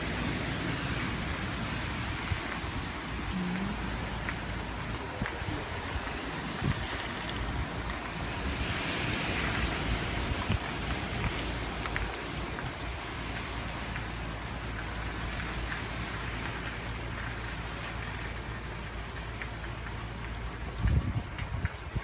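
Hurricane wind gusts with driving rain: a continuous rushing hiss over a low rumble, swelling in a stronger gust about nine seconds in.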